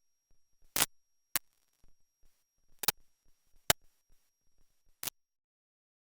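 Glitching audio from a failing MiniDV tape camera: dead dropouts broken by half a dozen brief, sharp digital crackles, cutting to total silence about five seconds in.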